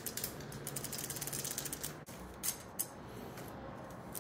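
Bicycle chain being pulled through the rear derailleur's pulleys and over the freewheel cogs: a rapid run of metallic clicking for about two seconds, then a few single clicks.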